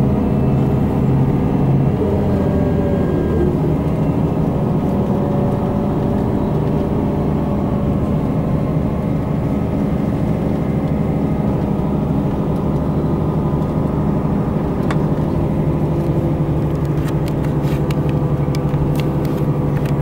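Steady engine hum and road noise inside a tour coach as it drives, a continuous low drone whose pitch shifts a little, with a few faint ticks near the end.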